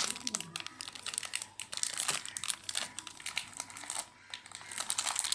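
Soap being crushed and crumbled, a dense run of small crisp crackles, with a brief lull about four seconds in.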